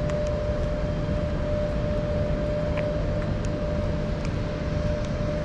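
Waterfall and fast-running stream water making a steady, unbroken rush, with a steady hum-like tone running through it.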